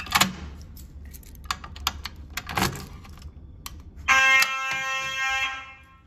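Several sharp clacks as the handle of a Simplex manual fire alarm pull station is pulled down. About four seconds in, a Simplex 2901-9838 fire alarm horn sounds one loud, steady blast of about a second and a half, set off by the pulled station.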